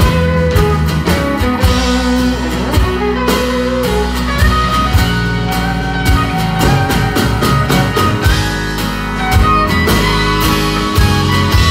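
Live country band playing an instrumental passage: a Telecaster-style electric guitar takes a lead solo of bending, sliding notes over drums and a low bass line.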